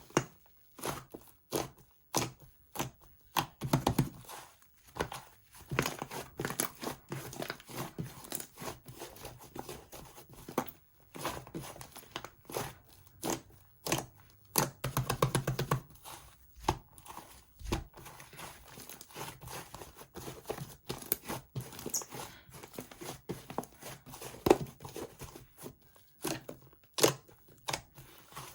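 Slime being pressed, stretched and poked by hand close to the microphone: sticky tearing, crackling and squishing noises in quick irregular bursts, with a fast run of tiny pops about fifteen seconds in.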